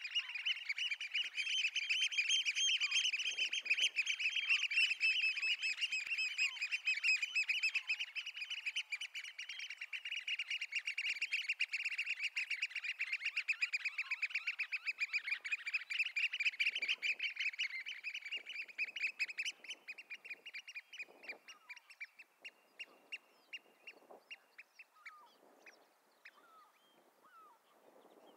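Eurasian oystercatchers piping: a long, fast run of shrill repeated notes. After about two-thirds of the way in, it slows into separate notes and fades.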